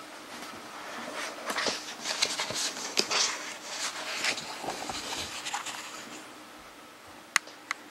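Pages of a large, heavy hardcover book being turned, with irregular rustling and swishing of paper. There are a few sharp ticks, one near the end.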